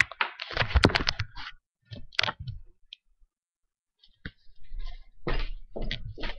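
Handling noise of a computer with its webcam being moved about: irregular clicks, knocks and rubbing, stopping for about two seconds midway and then starting again.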